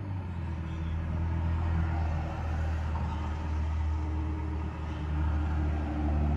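A steady low motor hum, like an idling engine, with a faint even hiss over it.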